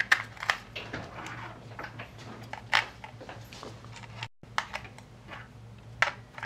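AAA batteries being pushed into the plastic battery compartment of a Casio fx-9860GII graphing calculator: a series of scattered sharp clicks and taps as each battery is seated against its contacts.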